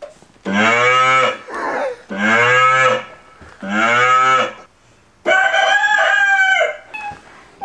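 Electronic keyboard playing a sampled moo-like voice sound three times in a row, each about a second long. About five seconds in it plays a longer, steadier held voice-like note.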